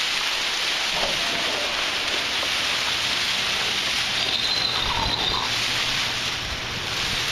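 Steady hiss of heavy hurricane rain, with wind gusts buffeting the microphone from about halfway through.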